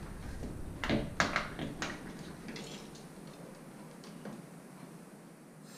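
Plastic Camelbak hydration bladder being handled: crinkling plastic and a few sharp clicks and taps, bunched about a second in, with a couple more later.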